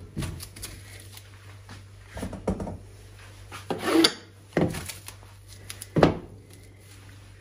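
Kitchen handling noises: about six separate, irregular knocks and thuds of utensils against a wooden cutting board.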